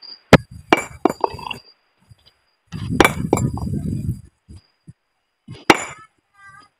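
Hard clinks of stone knocking on stone as broken rock pieces are handled, three sharp ones in the first second. About three seconds in comes a heavier clatter with a low rumble of rock shifting, and near the end there is one loud sharp knock.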